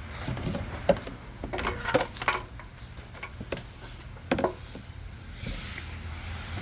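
Irregular clicks and knocks of a plastic lower bumper trim piece being handled and pressed into place against the bumper while its first screws are lined up, with the sharpest knocks about a second, two seconds and four seconds in.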